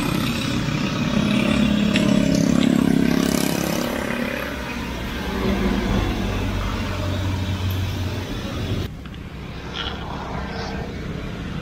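Road traffic passing close by, motor scooter and car engines swelling and fading. The sound changes abruptly about nine seconds in.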